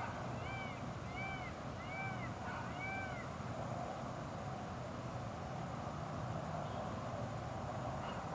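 A bird calling over and over, arched notes about one every 0.7 s, that stop about three seconds in, over a steady hiss.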